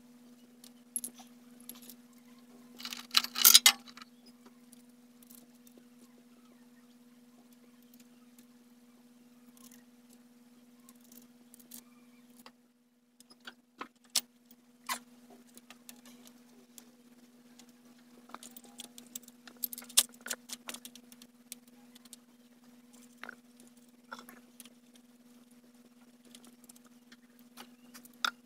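Scattered metallic clinks, taps and scrapes of hand tools and engine parts while diesel injectors are refitted into an Isuzu 6WG1 cylinder head, with a louder burst of rattling about three seconds in. A steady low hum runs underneath.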